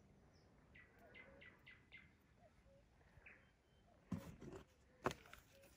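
Faint birdsong: a bird gives a run of short, falling chirps. Near the end there is a rustle and then a sharp click, handling noise from small fishing tackle held in the hand.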